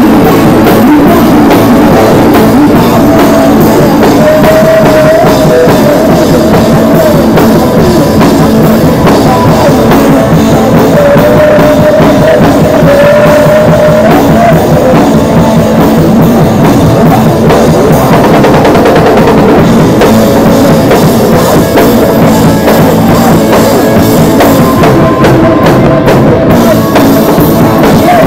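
A live rock band playing loud: a drum kit and electric guitar, with a singer's voice coming through over them in places.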